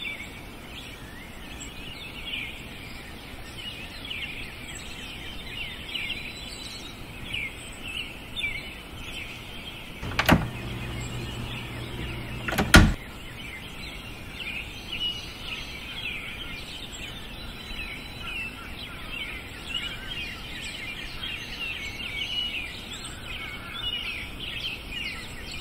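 Many birds chirping and calling continuously in a steady outdoor background. Two sharp knocks about ten and thirteen seconds in, with a low rumble between them, are the loudest sounds.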